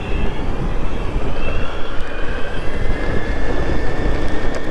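Electric skateboard rolling fast downhill: wind buffeting the microphone and wheel noise on asphalt, with a faint high whine that climbs slowly in pitch a couple of seconds in and then holds, as the board's electric motors pick up speed.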